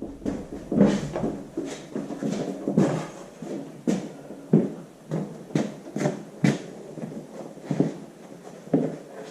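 Irregular heavy metal clunks and knocks, about one or two a second, as a tractor engine is pushed and shifted against the transmission bell housing to line up the shafts for mating.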